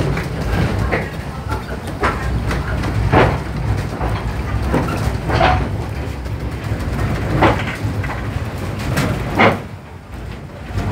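Wooden carriage of a narrow-gauge steam train running over the track: a steady low rumble, with sharp clacks and knocks from the wheels and rail joints every second or two.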